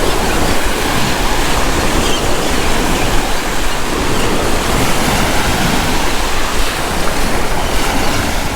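Waves washing onto a sandy beach, heard as a steady rushing noise, mixed with wind buffeting the microphone.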